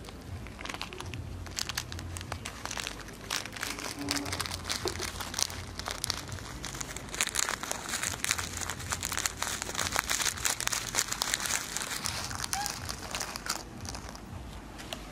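Dense, irregular crackling and crinkling: many small sharp clicks close together, over a low steady hum.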